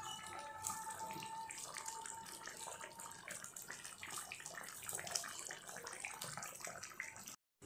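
Hilsa curry in a thin mustard gravy bubbling softly as it simmers in the pan, a faint steady crackle of small pops.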